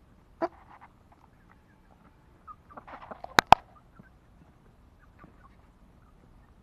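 Hens pecking and clucking softly at close range, with two sharp taps a split second apart about three and a half seconds in.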